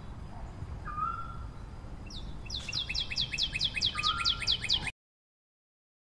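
European robin singing: a short whistled note about a second in, then a fast run of quick notes falling in pitch, about six a second, with another short whistle among them, over a low steady rumble. It all cuts off abruptly near the end.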